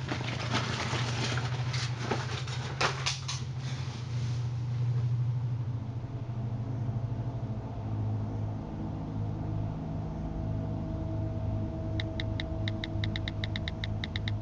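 Bedsheets rustling and shifting for the first few seconds over a low steady drone. The drone then settles, with a held tone added. Near the end comes a rapid run of even clicks, about seven a second: a smartphone's on-screen keyboard being tapped.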